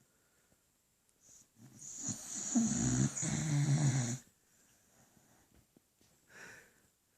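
Sleeping beagle snoring: one long snore of about two seconds, then a short, much quieter breath about six seconds in.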